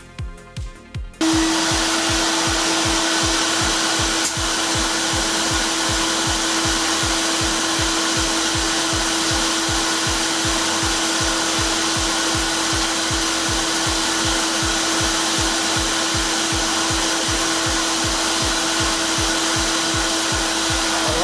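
A loud, steady motor-driven machine starts about a second in and runs with a strong hiss and a held whine, over synthwave background music with a steady kick-drum beat.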